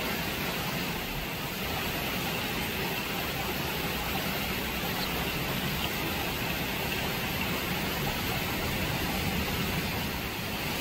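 Shallow stream water running steadily over rocks.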